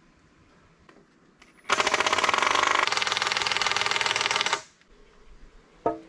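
A handheld power tool, used against the house wall and deck frame, runs with a fast, even hammering rattle. It starts about two seconds in, runs for about three seconds and stops abruptly. A short sharp sound follows near the end.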